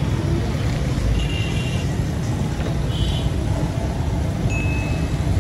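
Busy street traffic ambience: a steady, dense rumble of vehicles, with a few short high-pitched tones rising above it about a second in, about three seconds in and near the end.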